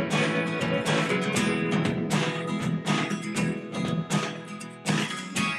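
Background music led by a strummed guitar, with chords struck at a steady rhythm.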